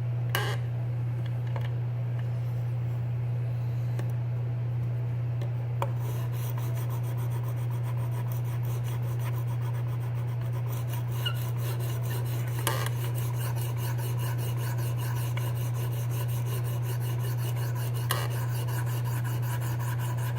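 Diamond sharpening stone of a KME guided sharpener stroked along a steel knife edge, a continuous rasping scrape, over a steady low hum.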